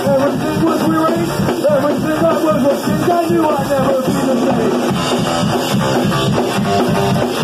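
Live rock band playing: electric guitar and drum kit, with a man singing over them.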